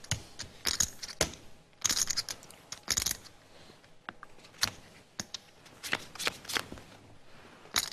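Poker chips clicking together at the table in irregular clusters of sharp clacks, as chips are stacked and handled after a raise and a call.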